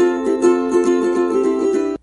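Instrumental music with a quick, picked melody on a plucked string instrument, breaking off abruptly at the end.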